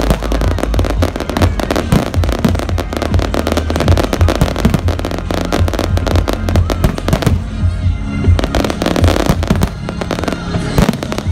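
Fireworks display: a dense, continuous run of shell bursts with deep booms and crackling, easing briefly about seven seconds in, with music playing underneath.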